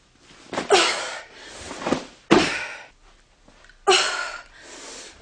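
A woman's forceful breathy exhalations, three sharp huffs about a second and a half apart, one with each sandbag clean rep.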